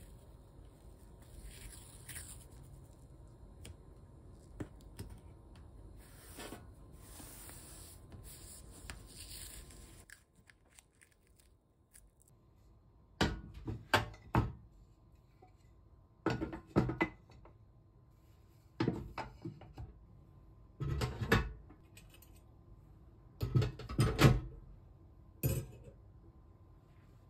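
Soft rubbing and peeling along the edge of a gas hob, then a series of sharp metal clanks, often in quick pairs, as the hob's metal pan-support grates are set back onto the burners.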